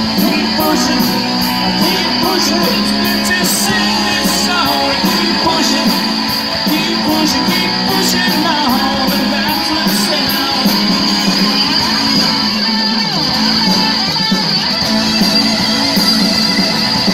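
Live rock band playing amplified electric and acoustic guitars over drums with a steady cymbal beat.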